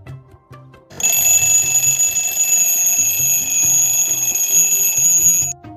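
Twin-bell alarm clock's bells ringing loudly and steadily for about four and a half seconds, starting about a second in and cutting off suddenly near the end.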